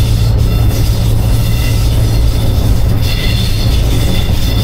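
Class 47 diesel-electric locomotive's Sulzer twelve-cylinder engine running steadily, heard from inside the driving cab as a loud, even low drone over wheel and track noise. A faint high squeal joins about three seconds in.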